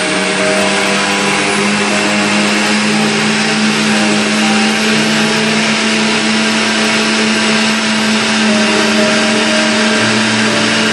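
Countertop blender running steadily, a loud, even whir with a constant low hum, as it churns cream and water into butter.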